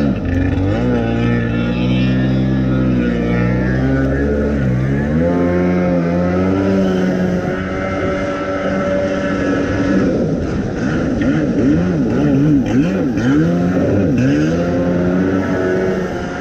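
Kawasaki X2 jet ski's 650cc two-stroke engine running through its new waterbox exhaust while being ridden, its pitch rising and falling with the throttle, swinging up and down repeatedly in the second half.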